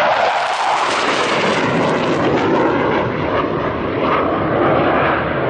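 RAF Panavia Tornado jet with twin RB199 turbofan engines passing at low level: loud, continuous jet noise. Its high hiss is strongest in the first couple of seconds and dulls as the jet moves away.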